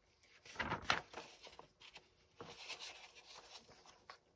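Glossy magazine pages being turned and handled: a short paper rustle a little under a second in, then a softer, longer rustle with small taps and clicks.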